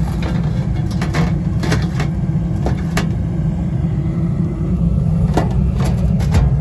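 Steady low rumble of running HVAC equipment, with a dozen or so sharp clicks and taps of parts being handled.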